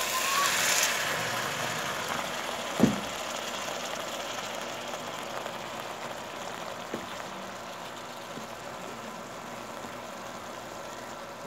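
Marinade sauce poured into a hot wok of chicken and potatoes for adobo: a burst of sizzling as it hits the pan, settling into a steady simmering hiss that slowly fades. A single sharp knock about three seconds in.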